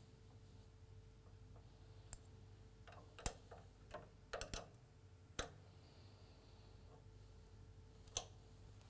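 Quiet scattered clicks and light metallic taps from a hand tool working the fixings of a cylinder mower's belt drive, over a faint steady hum.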